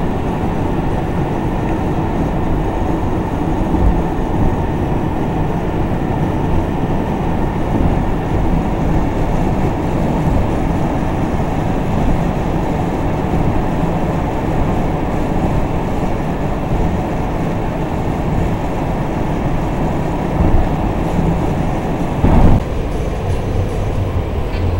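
Steady low road and engine rumble heard from inside a vehicle moving at highway speed, with a brief louder bump near the end.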